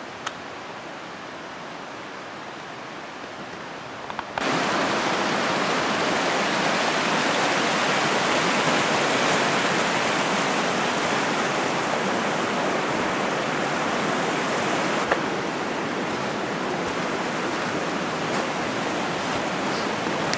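Steady rush of flowing stream water, which becomes suddenly louder about four seconds in and eases slightly later on, with a few faint clicks.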